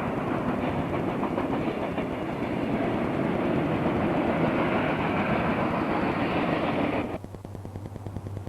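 Santa Fe train rolling past, a dense rumble of wheels on rail with some clickety-clack. It cuts off suddenly about seven seconds in, leaving a quieter low hum with a rapid clatter.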